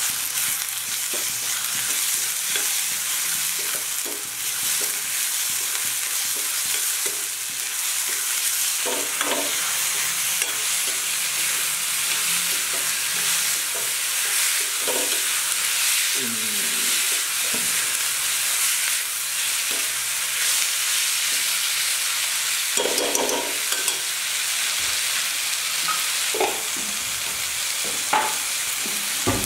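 Chopped onions, tomatoes and spices sizzling in oil in a wok as a spatula stirs and scrapes them around the pan. There is a steady hiss, with a few louder scrapes scattered through it.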